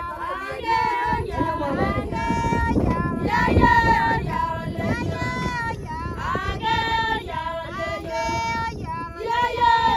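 A group of Maasai women singing a traditional song together, in short repeated phrases with held notes.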